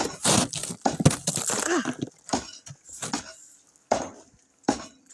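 Snow and ice being scraped, in a series of short, irregular crunching strokes with brief pauses between them.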